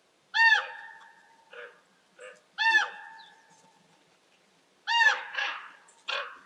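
A large bird calling repeatedly: four loud calls about two seconds apart, each a quick upward start settling into a long level note that fades out. Softer, shorter calls sound in between.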